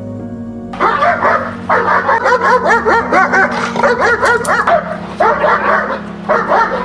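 A dog barking rapidly in quick volleys, several barks a second, with two short pauses, as it is worked under defensive pressure in protection training.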